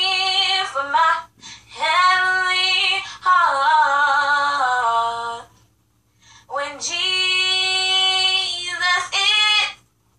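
A young girl singing solo and unaccompanied, in three phrases with long held notes and short silent pauses between them.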